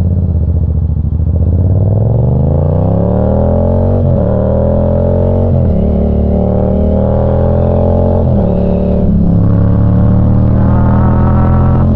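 Yamaha FZ-07's parallel-twin engine accelerating under a rider, its pitch climbing through the revs and dropping sharply at upshifts about four, five and a half and eight and a half seconds in.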